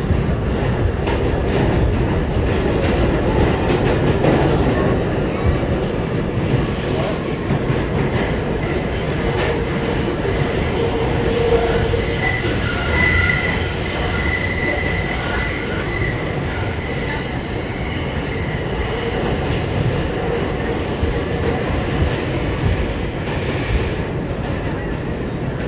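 Interior of an R211A New York City subway car running between stations: steady wheel-and-track rumble with some clatter, and a high-pitched wheel squeal for several seconds in the middle.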